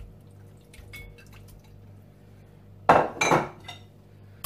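Raw chicken pieces dropped into a glass bowl of yogurt marinade, giving a short two-part clatter about three seconds in, with a few faint knocks against the bowl before it.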